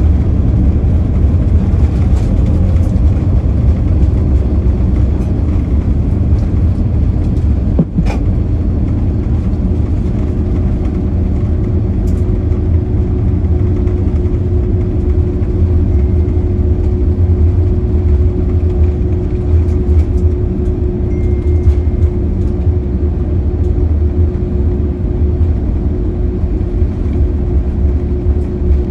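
Inside the cabin of an Airbus A330-203, a steady, loud rumble from its General Electric CF6-80E1 engines and its wheels as the airliner rolls along the runway after landing. A steady hum comes in about ten seconds in and holds, and there is a single short click near eight seconds.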